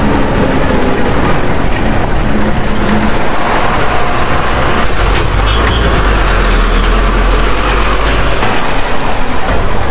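Bus running on the road: steady engine and road noise with wind rushing past an open window, the low rumble growing heavier about halfway through.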